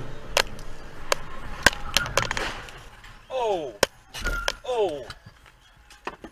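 Motorcycle colliding with a car: a run of sharp crashes and clatter over the first two and a half seconds. Then a person's voice cries out twice, each cry falling in pitch.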